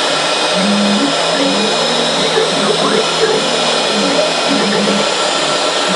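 CNC router spindle running steadily at high speed while its cutter mills a pocket in a foam block, with a lower drive-motor tone that changes pitch in short steps as the head moves along its axes.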